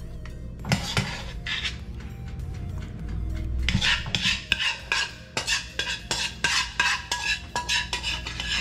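Metal tongs clinking and scraping against a pan and a serving platter as sauced crab pieces are lifted and set down. The clicks come thick and fast in the second half, over a steady low hum.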